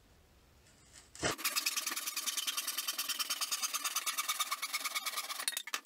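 Handsaw crosscutting a wooden fence picket in half, with fast, even strokes that start about a second in and stop just before the end.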